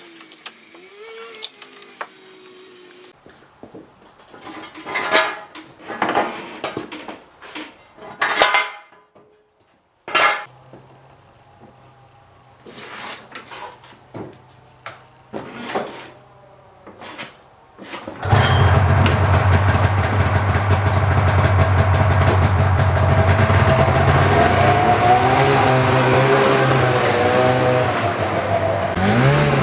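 Metal clinks and clatter of hand tools on the snowmobile for the first two-thirds. Then, about 18 seconds in, the 1997 Polaris Indy Sport's two-stroke engine starts and runs loudly and steadily, its pitch rising and falling near the end as it is revved.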